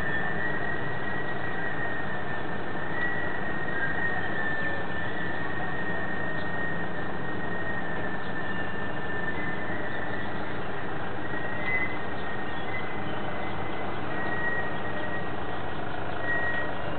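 An unidentified steady drone: a continuous noisy rumble with a high whining tone on top that wavers slightly in pitch and drops out briefly now and then.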